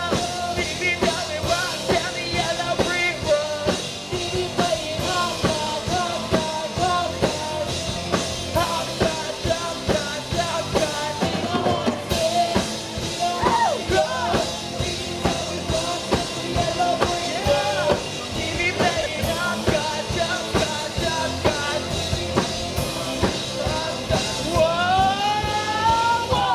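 Live rock band playing with drum kit, electric guitar and a singer's voice.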